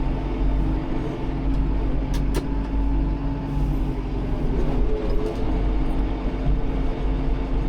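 Tractor engine running steadily, heard from inside the cab, with a couple of sharp clicks about two seconds in.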